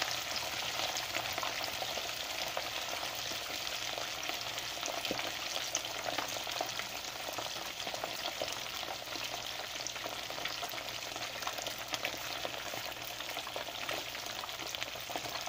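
Two pieces of red snapper frying in a pan of hot oil: a steady sizzle with constant small crackles and pops.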